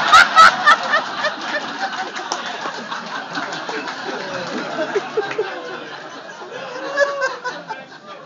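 Comedy-club audience laughing at a punchline, loudest in the first second along with a few sharp knocks, then dying down to scattered laughs with a brief swell near the end.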